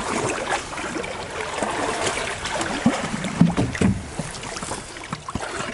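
Water rushing and splashing around a canoe being paddled slowly through moving current, with a few low knocks about three to four seconds in.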